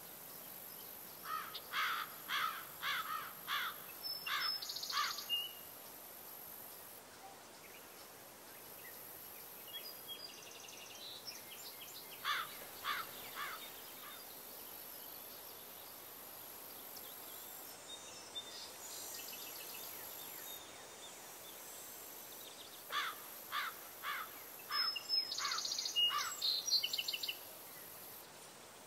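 A songbird singing three phrases, each a quick run of repeated down-slurred notes ending in a higher flourish, over a steady faint high hiss.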